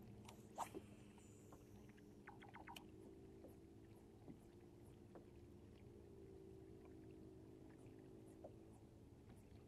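Faint, steady hum of a bass boat's electric trolling motor, its pitch shifting slightly now and then, with a few light clicks: one about half a second in and a small cluster between two and three seconds in.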